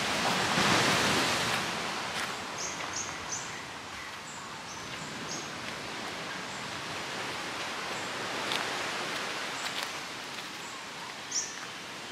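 Outdoor ambience: a steady rushing noise, louder for the first two seconds, with short high bird chirps scattered over it, several in quick succession a few seconds in and a clearer one near the end.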